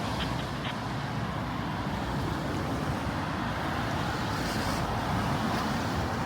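Steady city ambience on a rainy night: a low hum of road traffic under an even hiss of rain and wet streets.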